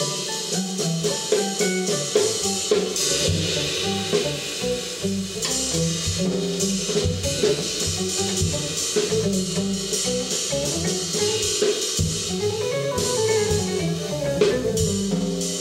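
Improvised duo of a semi-hollow electric guitar and a drum kit: the guitar plays a winding line of notes over drums and cymbals.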